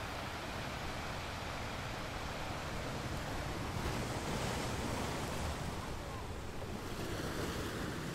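Steady rushing noise that swells about four seconds in and eases off again toward the end.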